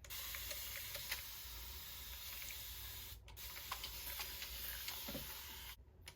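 A spray bottle misting the wig's hair in two long continuous sprays, each a steady hiss: the first about three seconds, the second about two and a half, stopping just before the end.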